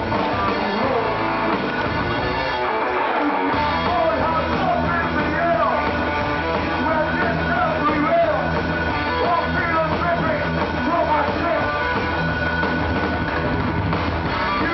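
Live rock band playing loud in a club: electric guitars, bass and drums heard through a camera microphone. The bass drops out for about a second around three seconds in, then the full band comes back in.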